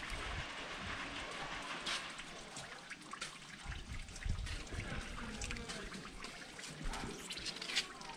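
Whey trickling and dripping out of freshly pressed tofu curds wrapped in wet cloth, as the curds are left to drain, with soft taps and rustles of the wet cloth being folded and smoothed.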